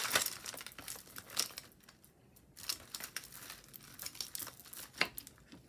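Irregular crinkling and rustling of packaging, with a few sharper clicks, as costume jewelry pieces are handled and sorted.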